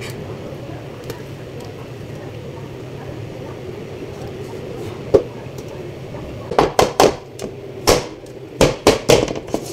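Round metal cake pan full of batter knocked down on the countertop again and again, the usual way to level the batter and drive out air bubbles. A steady low hum lies under it, with one knock about five seconds in and about eight quick knocks near the end.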